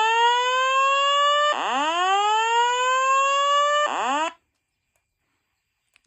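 Fire alarm voice-evacuation speakers sounding the whoop evacuation tone: repeated rising sweeps about two and a half seconds each. The tone cuts off abruptly just after four seconds in, mid-sweep, an unwanted break in the signal that the owner calls goofy and says he has to fix.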